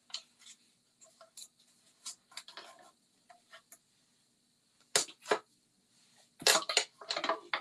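Clear plastic cutting plates and paper being handled and laid into a die-cutting machine: scattered light clicks and taps, two sharp clacks about five seconds in, and a denser burst of clattering plastic near the end.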